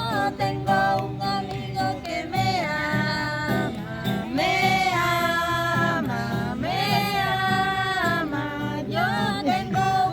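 A song being sung, with a melodic voice line over instrumental accompaniment.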